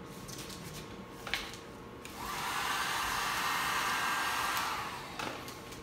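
Plastic squeegee pushed across 3M satin vinyl wrap film on a car door, a steady scraping hiss of about three seconds that starts about two seconds in, as the film is pressed down and the air worked out from under it. A short click comes a little after one second.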